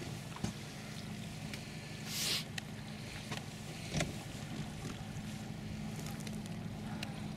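Outboard motor of a Zodiac inflatable boat running steadily, giving a low, even hum. A brief hiss comes about two seconds in, and a couple of light knocks sound near the start and around four seconds.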